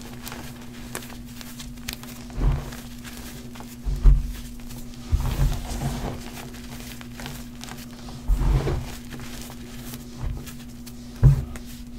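Hands squeezing and pressing a heap of crumbled powdered chalk: about six soft, low thuds with faint crunching and crumbling between them, over a steady low hum.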